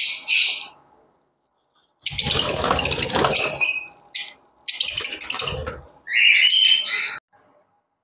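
Caged lovebirds squawking shrilly in several short bursts, with two louder, fuller bursts about two and five seconds in.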